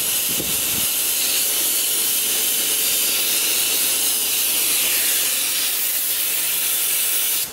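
Gravity-feed compressed-air spray gun spraying primer onto a fiberglass car body: a steady, loud hiss of air and paint mist, dipping briefly near the end.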